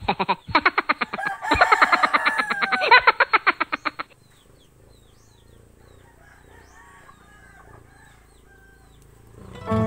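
A chicken cackling in a fast, loud run of clucks for about four seconds, then stopping abruptly. Faint bird chirps follow, and music starts at the very end.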